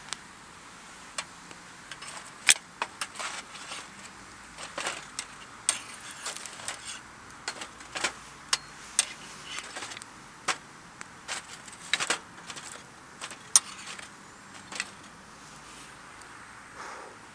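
Wood campfire crackling: irregular sharp pops and snaps, several a second at times, over a faint steady hiss.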